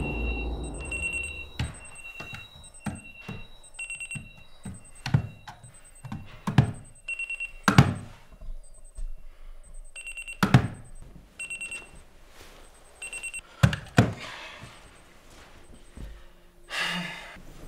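Digital clock radio alarm beeping: a high-pitched electronic beep repeated in quick bursts, stopping about 13 seconds in. Several dull thumps fall between the beeps.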